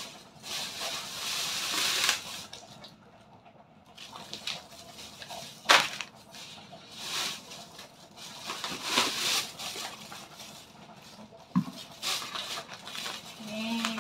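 Plastic food packets and a plastic bag rustling and crinkling as they are handled, in several bursts, with one sharp click a little before the middle.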